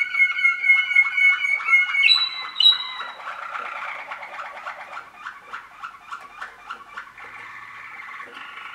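Young Waterslager song canaries singing. There are long held notes and rolling trills, a jump in pitch about two seconds in, then a slower run of repeated notes at about three a second.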